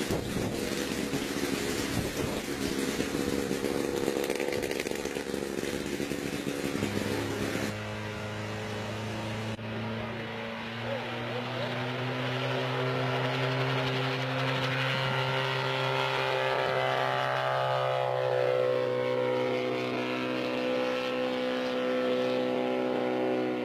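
Small homemade single-seat helicopter's engine running at a steady, even pitch, dipping slightly in pitch near the end. Before it, for about the first eight seconds, a rough, noisy mechanical rumble.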